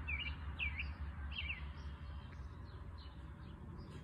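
A songbird chirping: short sharp notes repeated about every half second in the first second and a half, then fainter, over a low steady rumble.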